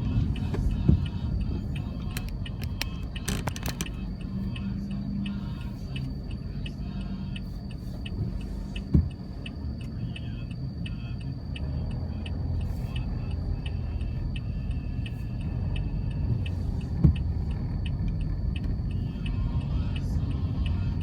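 Steady low road-traffic rumble with a run of quick regular ticking over it and a few short thumps.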